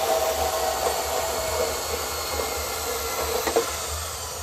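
Portable band saw running, its blade cutting through steel exhaust tubing with a steady cutting noise.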